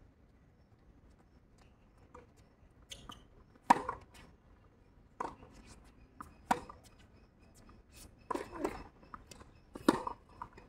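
Tennis ball being struck by rackets and bouncing on a hard court during a rally: sharp pops a second or two apart, the loudest near the end as the near player hits a forehand.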